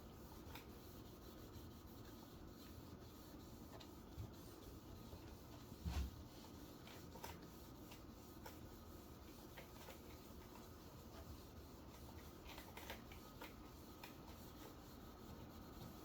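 Near silence: faint rubbing and small handling clicks, with one dull thump about six seconds in.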